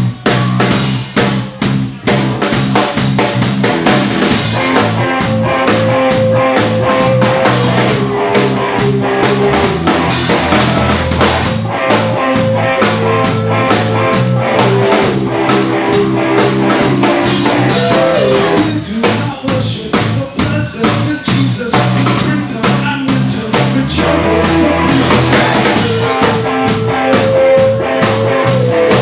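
Live band playing loud music: busy drum-kit beats with held guitar notes that change pitch every few seconds.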